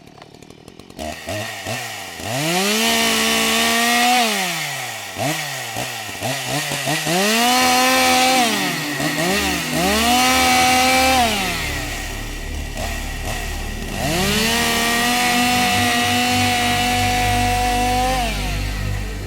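Chainsaw engine revved up and down several times: it climbs to a high steady whine, holds for a few seconds and drops back, with a few quick throttle blips in between.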